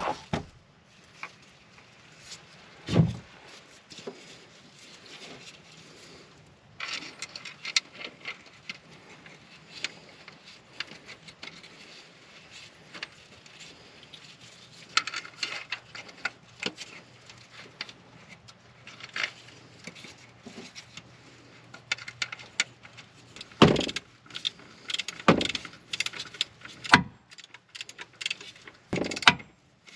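Clinks, scrapes and knocks of hand tools and a plastic oil filter housing being fitted to an engine block under a car, with several sharp metallic knocks in the last six seconds as a ratchet on a long extension is worked onto the mounting bolts.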